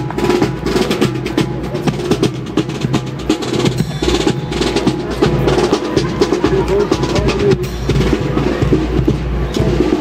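Marching band playing, with rapid snare drum strokes and rolls and bass drum beats over held band tones.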